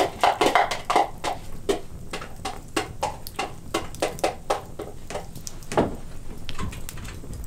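Frying pan of potatoes, sausages and onion in butter over an open wood fire, with irregular crackling and pops, a few each second, from the fire and the frying.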